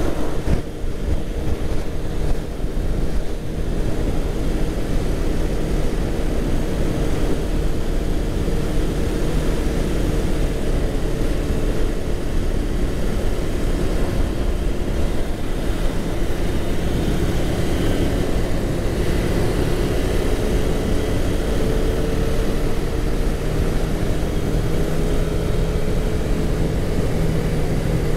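Motorcycle engine running at a steady cruise, its note rising and falling slightly, with wind rushing over the rider's microphone.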